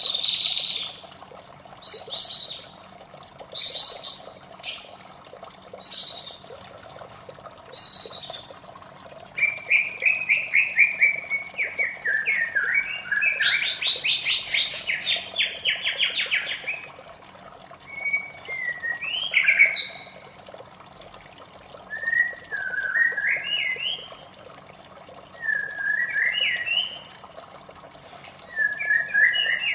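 White-rumped shama singing: short loud phrases about every two seconds, then a long run of rapid whistled trills, then short rising whistles again. A steady sound of running water underneath.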